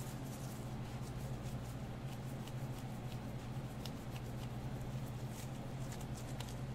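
Gloved hands folding and rolling a flour tortilla on a plastic cutting board: faint rustles and light scattered ticks, over a steady low hum.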